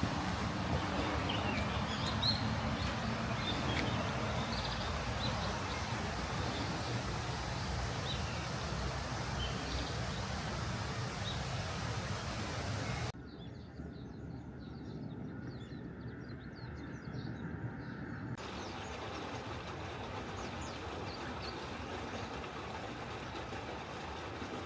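Steady outdoor background noise with small birds chirping now and then. About halfway through it drops suddenly to a quieter, thinner hush.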